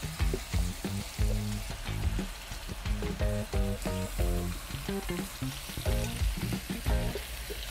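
Sliced beef belly sizzling in a pot as raw potato chunks, onion wedges and carrots are tipped in on top, with a steady frying hiss. Light background music with short plucked-sounding notes plays under it.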